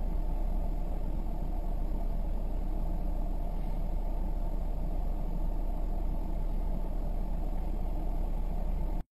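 Steady low rumble of a car's engine and road noise heard inside the cabin, with no impacts. It cuts off suddenly near the end.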